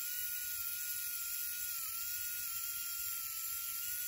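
Small LEGO Power Functions electric motor running on current picked up from the metal rails: a steady high whine that wavers slightly in pitch.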